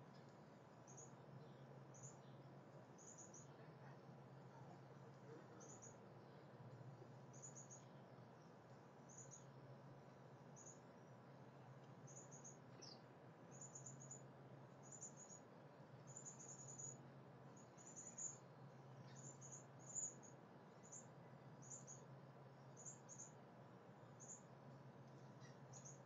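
Faint, short, high-pitched chirps repeating about once a second, coming closer together around the middle, over a low hum that pulses on and off.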